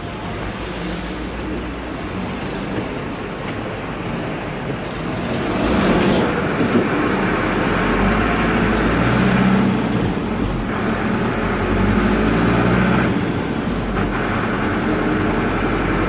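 Air-cooled Deutz F4L912 four-cylinder diesel of an Otokar M-2000 minibus running noisily under way, heard from the driver's seat. About five seconds in the engine note rises and gets louder, and it changes pitch several more times after that, as the revs and gears change.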